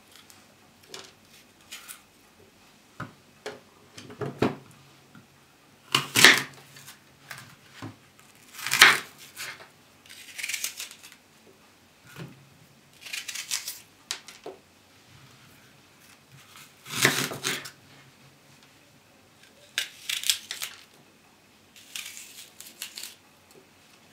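Kitchen knife slicing crisp green apples on a wooden cutting board: about eight crunchy cuts a few seconds apart, with small knocks of the blade and apple pieces on the board between them.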